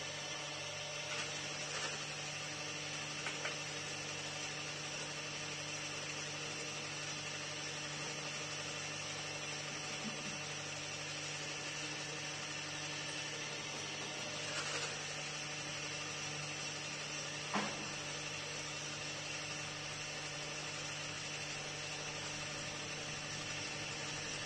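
Old pillar drill press running with a steady electric motor hum while boring holes through short lengths of branch wood. A few light knocks are heard, the sharpest about 17.5 s in.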